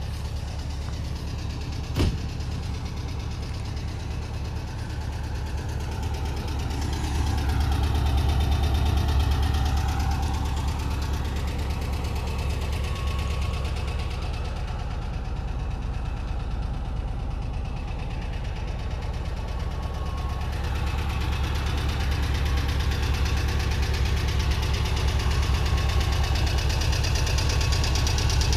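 Volkswagen Bus's air-cooled flat-four engine idling steadily, growing louder near the end. A single sharp click about two seconds in.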